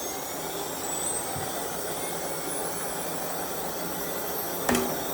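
Moore No. 2 jig grinder's 40,000 RPM grinding spindle spinning up: a thin high whine climbing steadily in pitch over a steady hiss. A single short click comes near the end.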